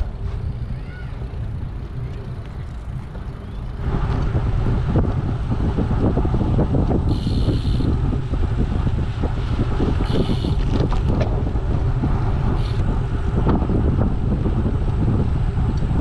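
Wind buffeting the microphone of a camera riding on a moving road bike, over a low rumble of tyres on the path; it gets louder about four seconds in.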